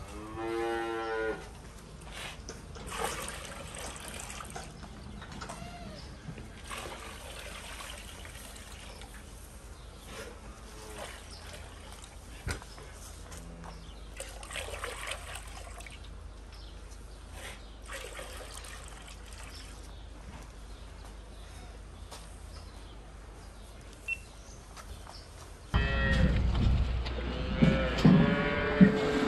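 A cow moos once, a short call of about a second, followed by low barn noise with scattered knocks. Near the end the sound gets louder with several rising and falling calls.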